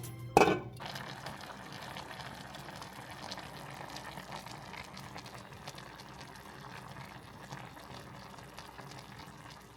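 Sukiyaki broth of soy sauce, sake and mirin bubbling steadily at a boil in a pan, with a single sharp knock about half a second in.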